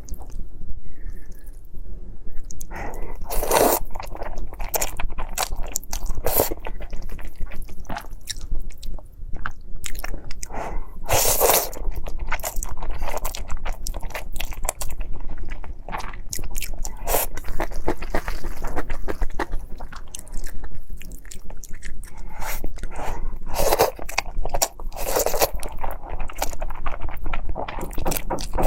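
Close-miked mouth sounds of eating tomato-flavoured Buldak noodles with kimchi: steady chewing with rapid wet clicks and crunching, swelling louder a few times.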